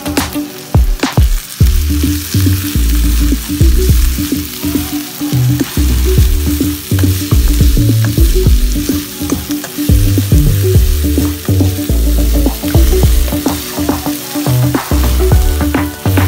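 Chopped chilies, onion, garlic and lemongrass sizzling in hot oil in a pan, stirred with a spatula that clicks and scrapes against the pan. Background music with a steady bass beat plays underneath.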